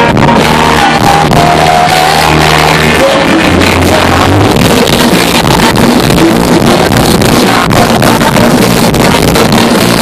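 A rock band playing loud and live: a singer sings over a Korg keyboard, electric guitar and bass, and drums.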